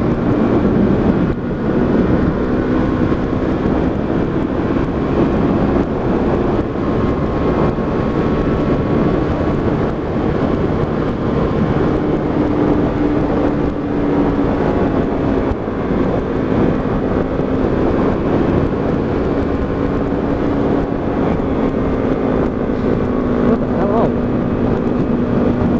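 125cc motorcycle engine running steadily at cruising speed, its pitch drifting slowly up and down, under heavy wind rush on the microphone.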